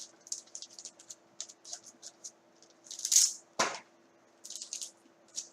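Trading cards and their packaging being handled on a table: a run of short, soft rustles and scrapes, a louder swish about three seconds in, then a light knock.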